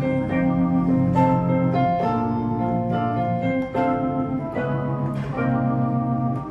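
Yamaha MX61 synthesizer keyboard playing sustained chords in a layered piano-and-organ voice, looping the progression A#maj7, Dm7, C#m7, Cm7 to F7, with a new chord about every second.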